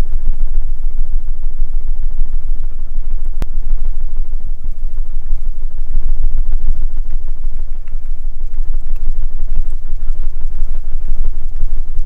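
Butterfly wing-flutter sound effect: a rapid, steady, low fluttering throb.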